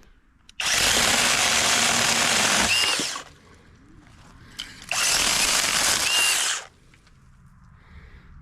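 Battery-powered 20-volt mini chainsaw (V-Modest, running on a DeWalt battery) cutting small saplings and branches, run in two bursts of about two and a half and two seconds, each starting and stopping abruptly.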